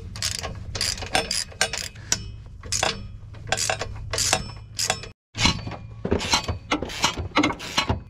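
Ratchet wrench clicking in quick, uneven strokes while undoing exhaust bolts, with a brief break about five seconds in.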